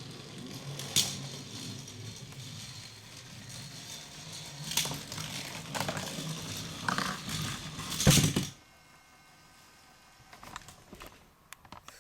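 Battery-powered TrackMaster Thomas toy locomotive running along plastic track with a steady motor hum and a few sharp clacks. The hum stops about eight and a half seconds in, leaving only a few light clicks.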